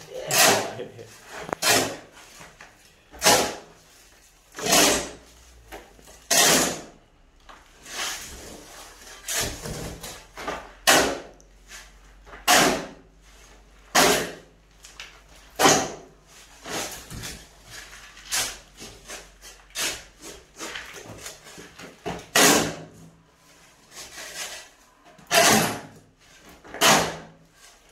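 Steel shovel scraping across a concrete floor as it turns a dry sand-and-cement mix, with a rasping stroke about every second and a half.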